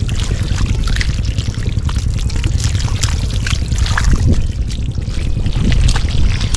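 Water splashing and trickling in many small irregular splashes over a heavy, steady low rumble.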